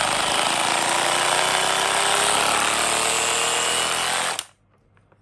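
Bosch GBH18V-26 brushless cordless SDS-plus rotary hammer running with no load in hammer-drill mode, steady and loud. It cuts off suddenly about four seconds in.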